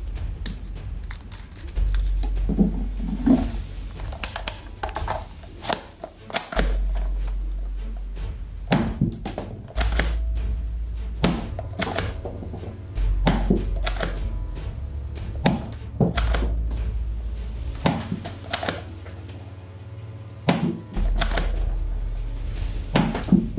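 Sharp plastic clicks and clacks, irregular and repeated, of a toy pistol and its magazine being handled and fitted together, over background music with a deep bass.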